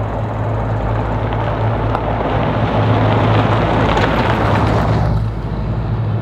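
Volkswagen Vanagon Westfalia camper van driving on a gravel road and passing close by: tyres crunching on gravel with the engine running, swelling to its loudest about four seconds in and falling away a little after five seconds. A steady low hum runs underneath.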